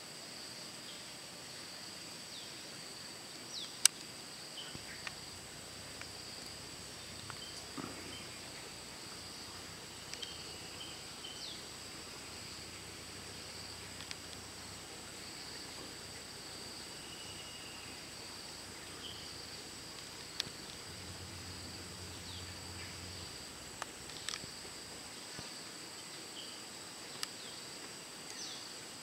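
Steady high-pitched drone of insects, two even tones held throughout, with a sharp click about four seconds in and scattered fainter clicks.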